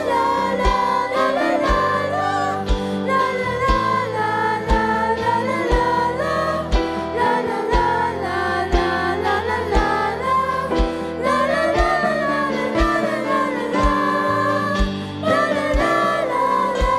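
Children's choir singing a gospel song over a backing track, with a low drum beat about once a second under the voices.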